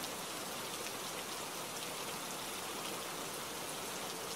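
Steady rain falling: an even, unchanging rain ambience.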